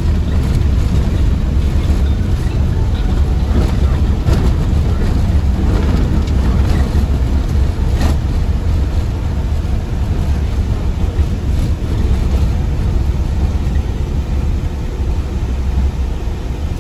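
Passenger van driving slowly, heard inside the cabin: a steady low engine and road rumble, with a few sharp clicks or knocks, the clearest about eight seconds in.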